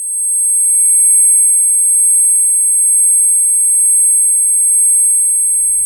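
A sound-effect clip: a loud, steady, very high-pitched electronic tone that fades in, holds for about six seconds and fades out near the end.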